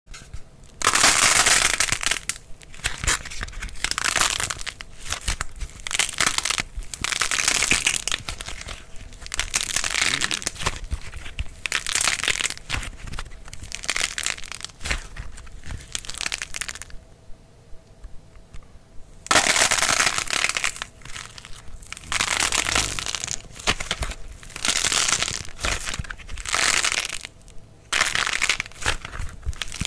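Hard-dried clay crust on fruit-shaped modelling clay being squeezed and cracked by hand: repeated bursts of crackling and crunching as the thin shell breaks up over the soft clay inside, with a short lull a little past halfway.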